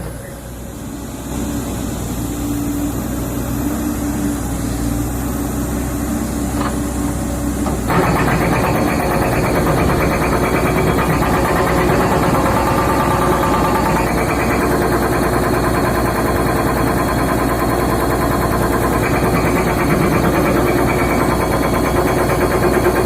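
Hydraulic excavator's diesel engine running, dropping low at the start and slowly building, then revving up sharply about eight seconds in and holding steady under load.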